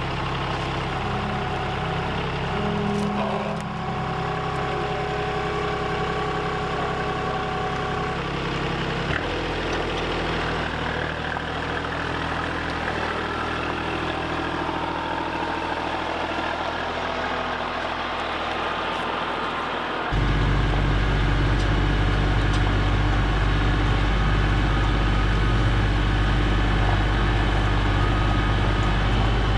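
Tractor engine running steadily. Its tone shifts abruptly twice, about a third and two-thirds of the way through, and is louder after the second shift.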